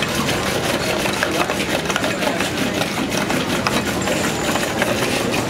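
Wooden churning stick spun back and forth between the palms in a narrow metal pot of liquid, a fast rhythmic churning with wood rattling against the metal.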